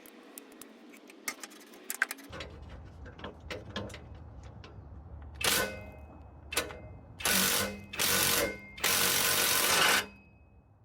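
Impact wrench hammering in five bursts, the last three lasting about a second each, on a torch-heated, rusted exhaust flange nut that is being broken loose. Small clicks and handling sounds come first.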